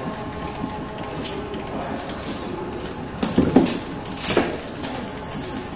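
Benchtop TTR ribbon slitter rewinder running, its motor and rollers giving a steady hum with a thin high whine as the ribbon winds. A few louder knocks come in a short cluster past the middle, and another about a second later.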